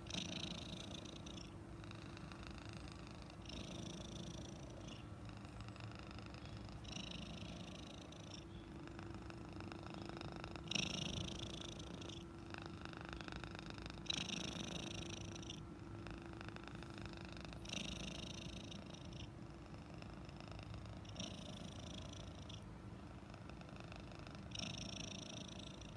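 Domestic cat purring continuously, with a louder, hissier surge lasting about a second that comes back roughly every three and a half seconds.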